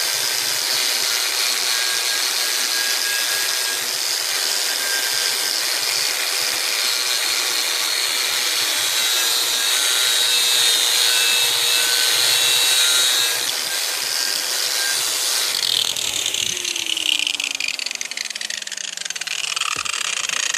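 Angle grinder with a wire-brush wheel running steadily and scrubbing old paint and rust off an engine part. About three-quarters of the way through, the brushing stops and the grinder's whine falls steadily in pitch as the switched-off wheel spins down.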